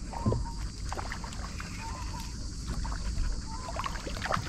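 Water slapping and lapping against the hull of a small aluminium boat at rest, with a steady rumble of wind on the microphone. Scattered small clicks and a few short high chirps are heard through it.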